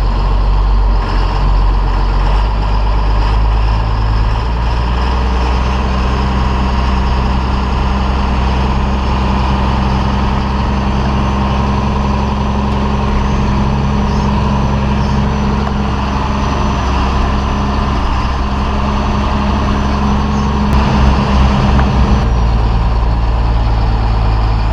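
John Deere 4455 tractor's six-cylinder diesel engine running steadily at idle, its low note shifting slightly a few seconds in and again near the end.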